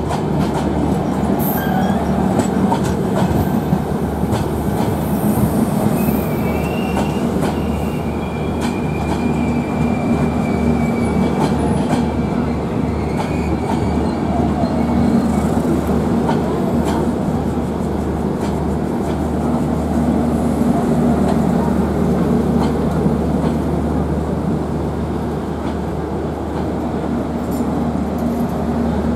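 Passenger train hauled by a WDM3D ALCO diesel locomotive arriving, with a steady low rumble and wheels clicking over rail joints. A faint wheel squeal runs for several seconds about a quarter of the way in.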